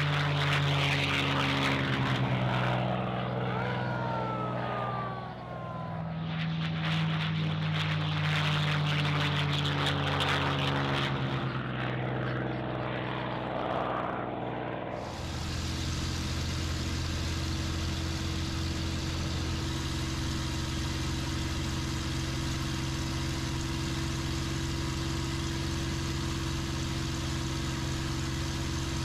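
P-51 Mustang fighters' Merlin V12 engines running at high power as the planes take off and pass, the engine pitch sliding down as they go by. About fifteen seconds in, this gives way to a steady engine drone heard from inside a Mustang's cockpit in flight.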